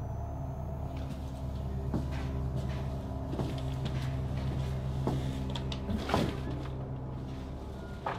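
Low, steady drone with a few scattered soft knocks and creaks, the strongest about six seconds in, as a door is eased open.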